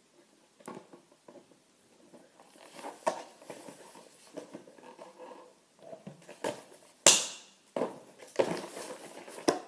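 Nerf blaster box being unboxed: scattered rustling, crinkling and small knocks of packaging being handled and pulled open, with one loud sharp noise about seven seconds in.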